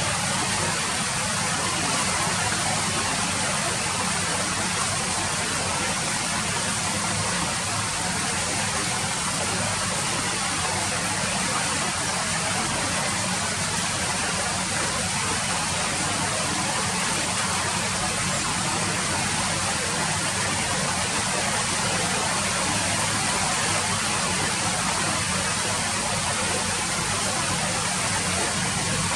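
Steady rain falling, an even hiss of many drops that holds at one level without let-up.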